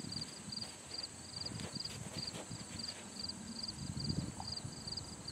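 Horse's hooves walking on the sand footing of a riding arena: soft, irregular thuds that are loudest about four seconds in.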